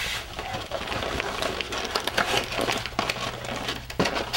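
Rustling, tapping and light clatter of takeout food containers being closed and gathered up off a table, with a sharper knock near the end, over a steady low hum.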